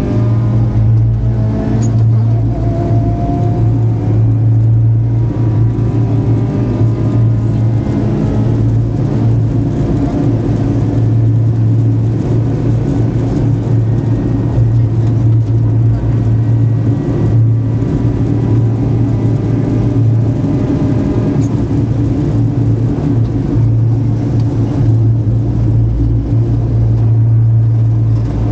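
Rally car's engine heard from inside the cabin, running hard along the stage with road and wind noise. The revs climb briefly in the first few seconds, then hold fairly steady.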